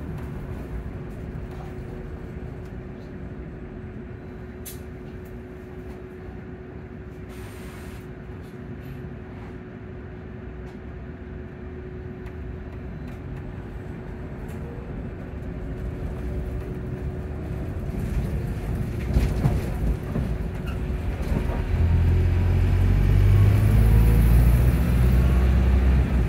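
Inside a Volvo hybrid bus on the move: a steady hum over the rumble and rattle of the running bus. Near the end the sound grows louder and a deep low rumble comes in.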